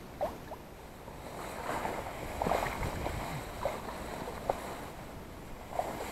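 Reed and grass stalks rustling and scraping as a small boat is pushed through a dense reed bed, with a few short sharp scrapes along the way.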